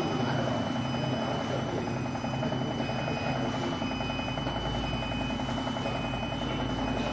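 CNC wood lathe turning a wooden column: the spindle runs steadily while the cutter chatters in a fast, even rhythm against the spinning wood, over a steady high-pitched whine. A deeper rumble joins about a second and a half in.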